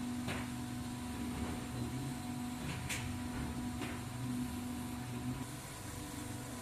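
Single-pass digital inkjet printer running with its conveyor belt moving: a steady motor and fan hum with a few steady tones. Three short ticks or swishes come about a third of a second in and around three and four seconds in.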